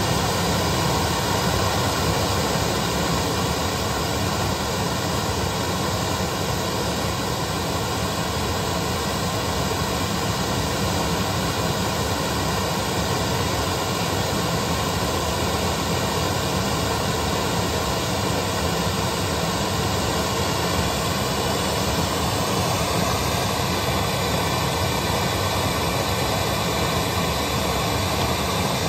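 Steady, hiss-like test noise played through a JBL CBT 70J-1 line-array speaker, set to about 85 dB at the measuring mic for an SPL fall-off test.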